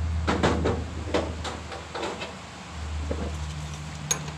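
A run of irregular metal knocks and clanks as a finger wheel and its shaft are worked on in a corn picker's husking bed, most of them in the first half, with one sharp click near the end, over a steady low hum.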